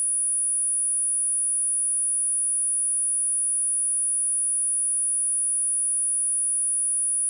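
A steady pure sine tone at 9783 Hz, a single high-pitched whistle held at one pitch and level, used as a speaker test and speaker-cleaning tone.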